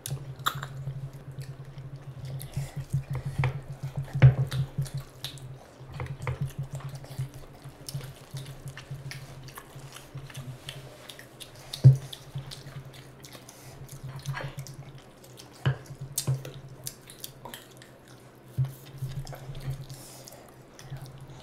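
Close-miked wet eating sounds: chewing and lip-smacking, with fingers squishing curry-soaked rice, making many short wet clicks and squelches over a steady low hum. One louder click comes about twelve seconds in.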